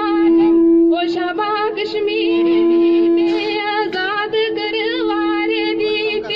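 A girl singing a Gojri folk song into a microphone, drawing out long held notes between shorter wavering phrases.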